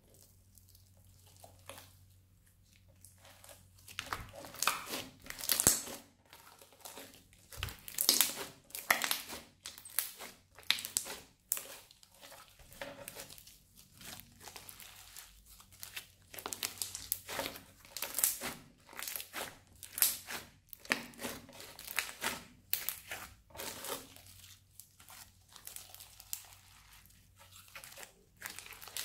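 Crunchy purple slime with small beads mixed in, stretched, folded and squeezed by hand, crackling and popping in irregular bursts; faint for the first few seconds, then louder and frequent.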